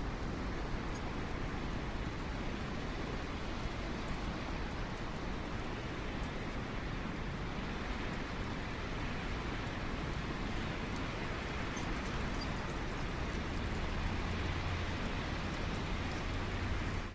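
Steady wind noise outdoors: an even hiss with a low rumble underneath and a few faint ticks. The rumble grows a little stronger near the end.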